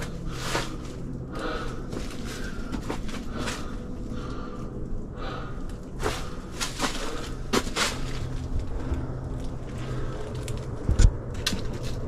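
Footsteps and handheld camera handling: scattered clicks and knocks over a steady low rumble, with one louder thump about eleven seconds in.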